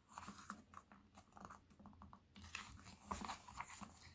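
Faint rustling and soft clicks of paper pages of a paperback picture book being turned and handled, a little louder after about two and a half seconds.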